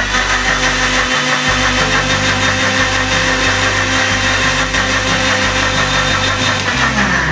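Electric mixer-grinder motor running steadily at speed as it churns curd and water into buttermilk. Near the end the motor winds down as it is switched off.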